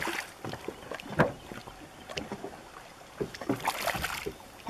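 A hooked smallmouth bass thrashing and splashing at the surface beside a boat as it is grabbed by hand: several short splashes, the biggest about a second in and a cluster near the end.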